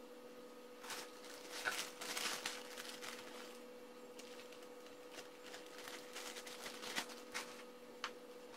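Faint clicks and rustles of small parts and tools being handled, loudest around two seconds in and again near seven seconds, over a steady electrical hum.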